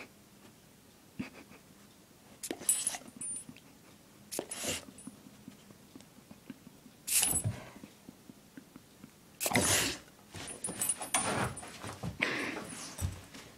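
An excited dog making short, breathy huffs through its nose, several of them a second or more apart, coming closer together in the last few seconds.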